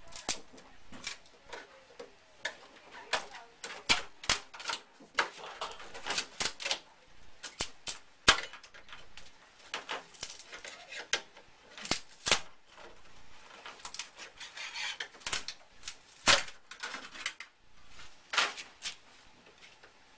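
Irregular sharp taps, clinks and knocks of tools and cans being handled on a sheet-metal pontoon top, with short bits of scraping in between.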